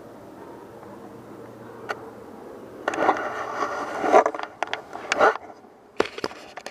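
Handling noise of a gun with a camera mounted on it: after a quiet stretch with one click, loud rustling and scraping with sharp clicks starts about three seconds in as the gun is lifted and tipped, and more clicks follow near the end.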